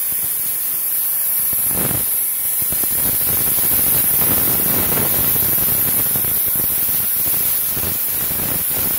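Plasma torch on a CNC cutting table cutting 2 mm hot-rolled steel plate: the arc and its compressed-air jet make a steady, loud hiss.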